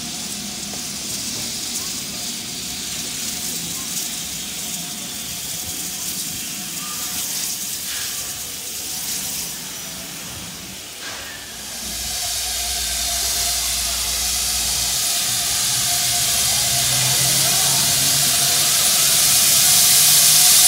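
Steam hissing from GWR King class 4-6-0 No. 6023 King Edward II as it stands at the platform. The hiss starts about twelve seconds in and keeps growing louder. Before it, an open-air background with voices.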